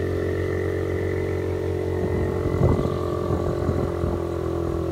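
Small motorcycle engine running steadily while riding, a constant drone, with a brief knock or rattle about two and a half seconds in.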